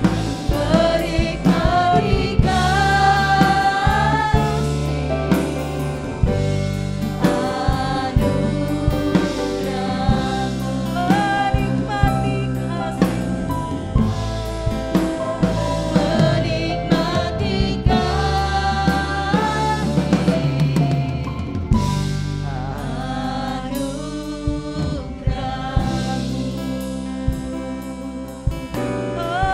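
A contemporary worship song: voices singing over a drum kit and band.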